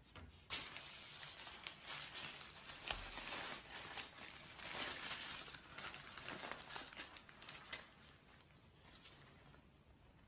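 A burger's paper wrapper crinkling and rustling as hands unwrap it, a dense run of small crackles that starts about half a second in and dies away near the end.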